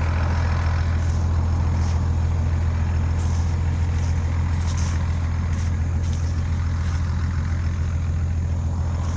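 Tractor engine idling steadily, a constant low hum.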